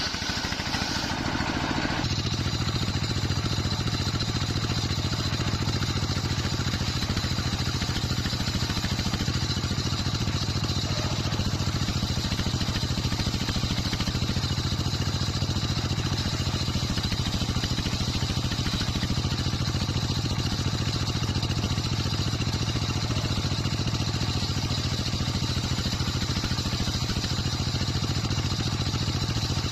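Circular sawmill with a wide blade running steadily under power, with an even low engine-like hum. Its sound shifts slightly about two seconds in.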